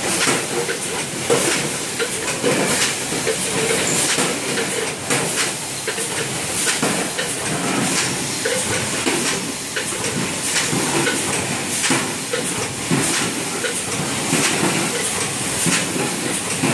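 Fully automatic bottle and tube screen printing machine (LH ZSY1) running through its printing cycle: a steady mechanical clatter with sharp knocks roughly once a second as the squeegee head and bottle holders cycle, over a constant hiss.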